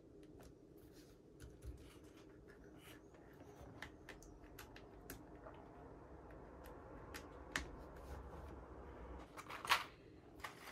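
Plastic keycaps being handled and fitted during a keyboard build: light, irregular small clicks and rubbing, with one sharper clack near the end.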